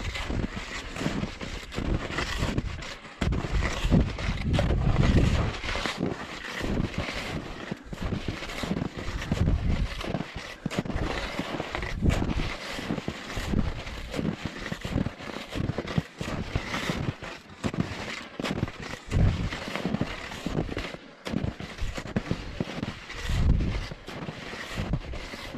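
Wind buffeting the microphone in uneven low rumbling gusts, over the scuffing of wide hunting skis and felt boots moving through snow.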